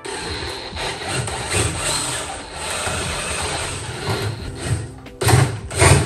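Cordless drill boring into a wooden tabletop round, running in bursts that get louder near the end.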